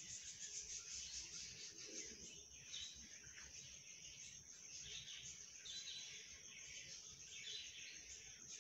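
Faint bird chirps over a steady, high insect trill.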